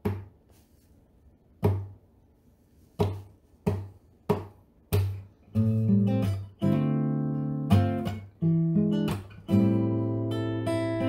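Intro music on guitar: a few single strummed chords, each left to ring out, then from about halfway a continuous run of chords.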